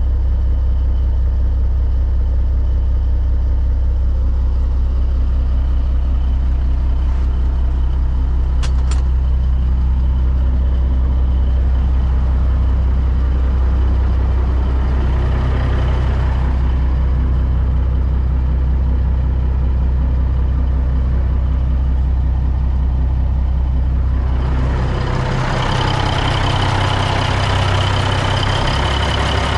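Caterpillar inline-six diesel of a 1989 Peterbilt 379 idling steadily, a deep drone heard from inside the sleeper cab. About 25 seconds in, the sound turns brighter and hissier as it comes from the open engine bay.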